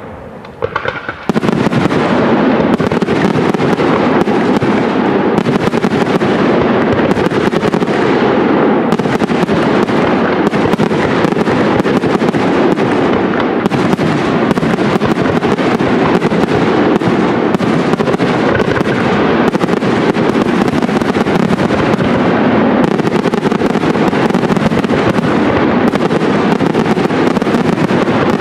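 Professional aerial fireworks display: a dense, unbroken barrage of shell launches and bursts, setting in suddenly about a second in and keeping up at a steady loud level.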